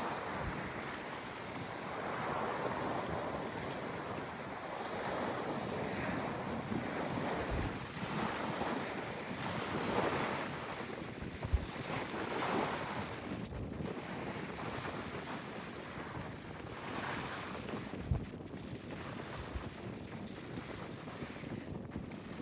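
Sea waves washing ashore, the surf swelling and falling back every few seconds, with wind gusting on the microphone and giving a few low thumps.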